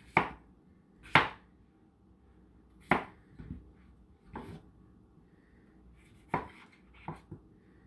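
Chef's knife chopping through a peeled cucumber onto a plastic cutting board: about six separate cuts, a second or more apart and irregularly spaced.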